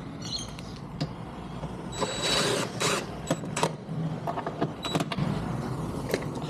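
Hand work on small lock hardware: scattered light clicks and knocks, with a scratchy rustle about two seconds in.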